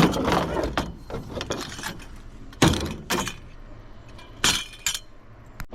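Clatter and knocks of discarded household items being picked up and handled, with four or so sharp hits in the middle and latter part.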